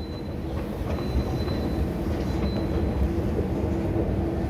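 Steady low mechanical rumble with a faint high whine, in an underground metro station, heard while riding a long escalator.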